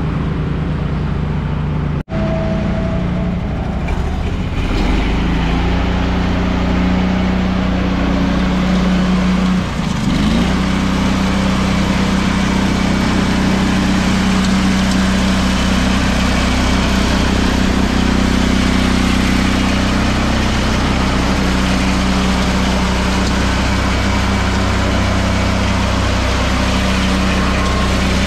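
Ride-on concrete power trowel running steadily as it works over fresh concrete, its engine giving an even drone. The sound breaks off briefly about two seconds in.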